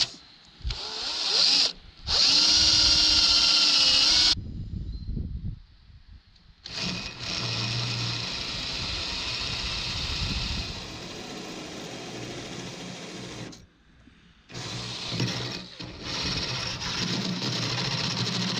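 Cordless drills boring through the narrowboat's steel hull: a twist bit drilling a pilot hole, then a hole saw cutting the larger hole for the heater exhaust's skin fitting. The drilling comes in several runs with short pauses between them. The first run is brief, its whine rising as the motor spins up, and the later runs are longer and steady.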